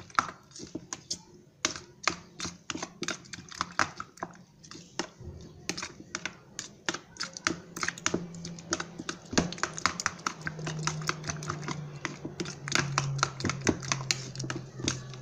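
A metal spoon beating raw eggs with chopped onion, green chili and tomato in a bowl: quick, irregular clicks of the spoon against the bowl, several a second.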